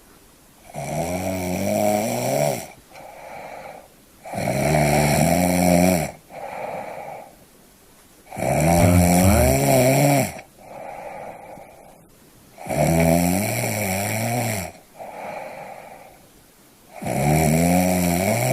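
A person snoring in a steady rhythm: five loud, pitched, rattling snores about four seconds apart, each followed by a shorter, softer breath.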